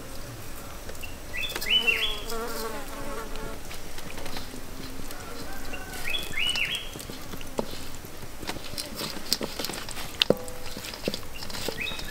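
Chirping in short groups of rising notes, about every five seconds, and a wavering insect buzz early on. Light clicks and rustles from hands working dried chili flakes into raw chicken drumsticks in a steel wok come in the second half.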